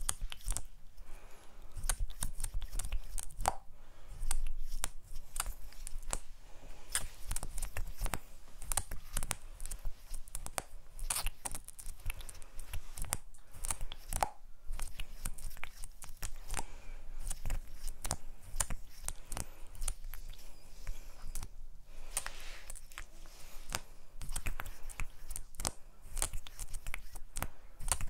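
Close-miked crackly clicking and scratching from a small plastic lip gloss tube and its wand being handled and tapped right at the microphone, with hand movements at the microphone; the clicks come thick and irregular throughout.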